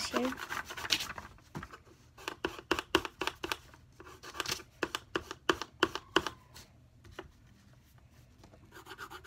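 Pencil scratching on paper in short, quick strokes as a drawing is sketched, several strokes a second for about five seconds, then fainter.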